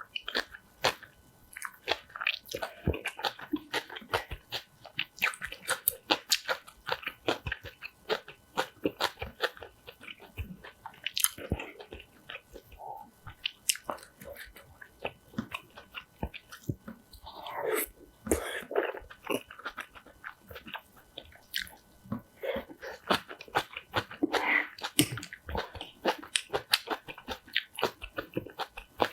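Close-miked eating sounds: kimchi being bitten and chewed with rice, in a dense run of crisp crunches and mouth clicks.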